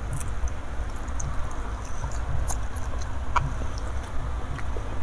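Close-miked chewing of balado fish roe: soft wet mouth smacks and small clicks scattered irregularly, over a steady low rumble.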